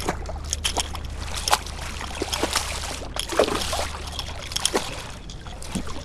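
A red drum (redfish) thrashing at the water's surface beside a kayak as it is netted: irregular splashing and sloshing.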